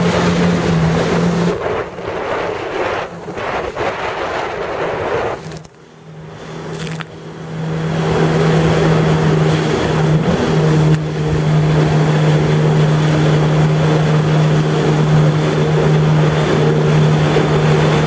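Jet ski engine running under way, a droning hum over a rush of water and wind. Its note falls off after about a second and a half, dips low about six seconds in, then comes back up and holds steady.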